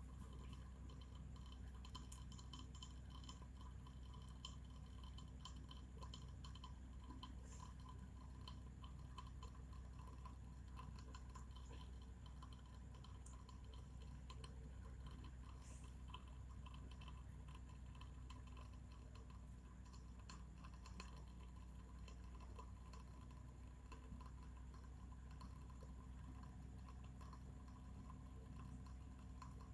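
Near silence: steady low room hum with faint scattered ticks.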